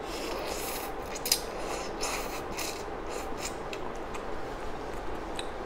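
A person slurping instant noodles off a fork: a run of short hissing sucks over the first three seconds or so, then only a few faint ones.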